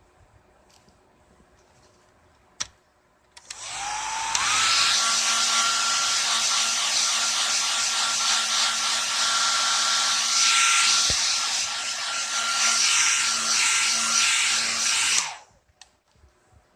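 Hair dryer switched on a few seconds in: its motor whine rises as it spins up, then it blows with a steady loud rushing noise for about twelve seconds before it cuts off suddenly. A single click comes just before it starts.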